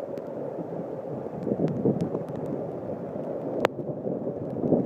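Muddy storm runoff pouring through the gaps of a boulder retaining wall: a steady rush and splash of water. A few sharp clicks cut through it, the loudest about three and a half seconds in.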